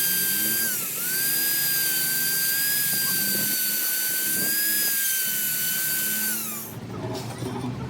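A handheld electric power tool runs at speed with a high, steady whine. About a second in it bogs down briefly under load and recovers, then winds down and stops near the end.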